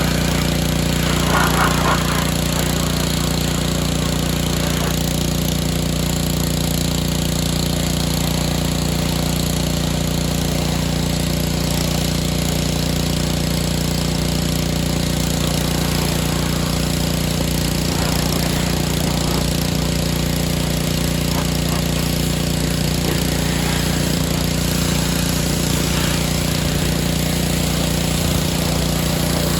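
Pressure washer running steadily: a constant small-engine drone under the hiss of the water spray.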